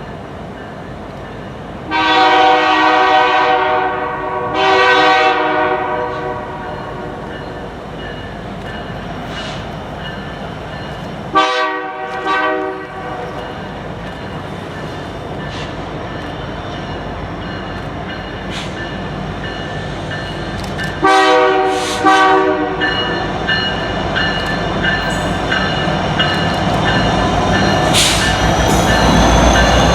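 EMD SD70ACu locomotive's air horn sounding the grade-crossing signal of two long blasts, one short and one long, then the train's engine and wheels growing steadily louder as it approaches.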